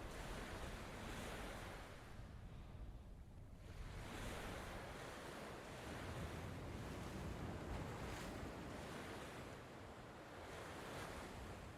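Strong wind and sea surf at the shore: a rushing noise that swells and eases in gusts, dipping about three seconds in and building again.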